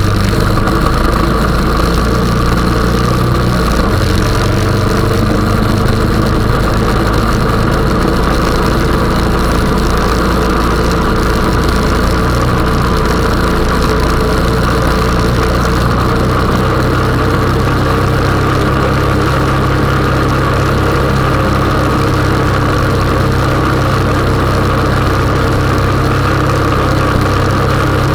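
Honda 420 ATV's single-cylinder four-stroke engine running steadily, its low note shifting a little over halfway through.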